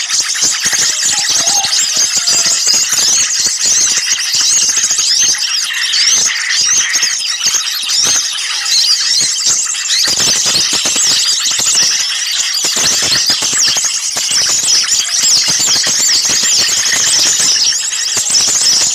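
A noisy chorus of many small songbirds calling at once: dense, overlapping high chirps and squeaky, rapidly rising and falling notes that never let up. This is a bird-lure recording of agitated small birds, such as bulbuls and ioras, in a commotion.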